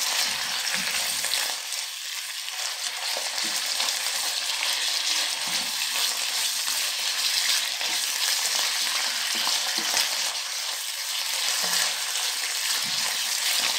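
Beef cubes and sliced mushrooms sizzling steadily in hot oil and reduced soy glaze in a nonstick wok, stirred with a silicone spatula that adds scattered light scrapes and taps. The meat's liquid has nearly cooked off, so the pan is frying rather than simmering, browning the mushrooms.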